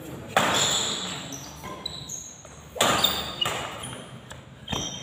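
Badminton rackets striking the shuttlecock hard twice, about two and a half seconds apart, each sharp hit ringing on in the large hall, with short squeaks of shoes on the court between them.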